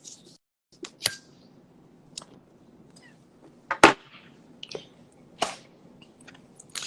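Eating sounds: a handful of sharp clicks and knocks, the loudest about four seconds in, of someone eating a bowl of menudo close to a phone's microphone.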